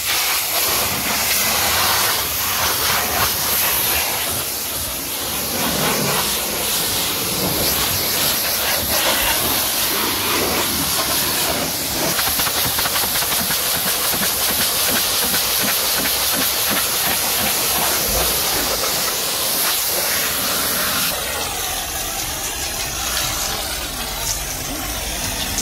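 Pressure-washer jet spraying water onto a car's bodywork: a loud, steady spray noise that changes character a little near the end.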